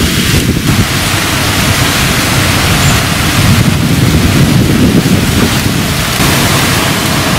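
Windstorm with light rain: steady rain hiss under gusting wind that rumbles on the microphone.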